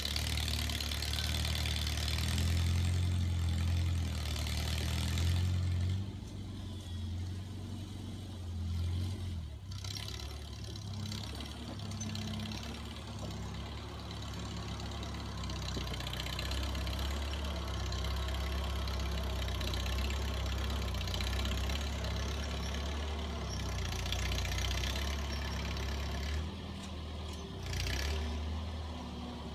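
1949 Farmall Cub tractor's small four-cylinder gasoline engine running while the tractor works a front plow blade through manure, its note rising and falling with the load.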